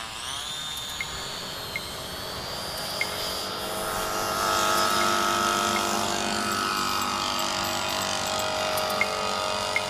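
Propeller motor of a remote-controlled pterosaur flying model whining as it spins up for takeoff. Its pitch rises over the first second or so, and it then runs steadily, growing a little louder.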